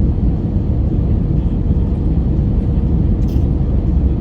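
Steady low rumble of an Airbus A320's cabin in flight, from its CFM56 engines and the airflow over the fuselage, with a faint steady hum. There is a light click about three seconds in.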